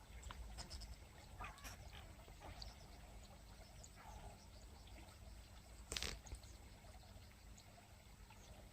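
Near silence: a faint low outdoor rumble with scattered small ticks, and one sharper click about six seconds in.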